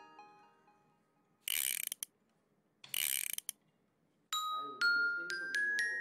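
Two short rasping, ratcheting sounds about a second apart, from the base slide and clamp of a Mafell LS103EC chain mortiser being adjusted by hand. Then a run of chime notes from the background music starts.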